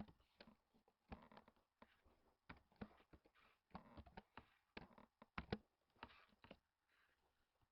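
Faint, irregular typing clicks on a computer keyboard, in uneven runs, with a short pause about six and a half seconds in.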